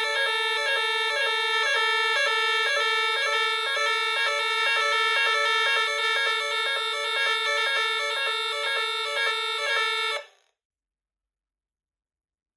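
Merlin Gerin 57041 class B electronic fire alarm sounder, driven by a Nugelec type 4 alarm panel, sounding the French NF S 32-001 evacuation tone: a harsh pitched pattern repeating about twice a second, which cuts off suddenly about ten seconds in.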